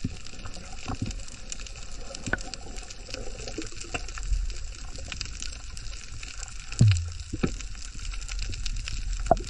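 Underwater ambience recorded by the camera: a steady watery hiss with scattered small clicks, and a low whoosh falling in pitch about seven seconds in.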